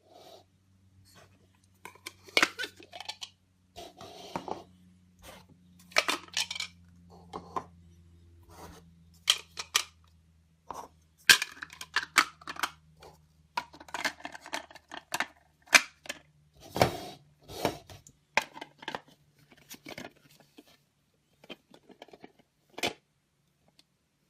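Plastic toy stacking cups being handled, knocking and clattering against each other and a hard surface in irregular clicks and clacks.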